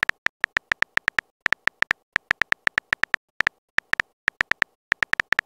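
Smartphone keyboard typing sound effect: rapid, uneven key clicks, several a second with short pauses, as a text message is typed.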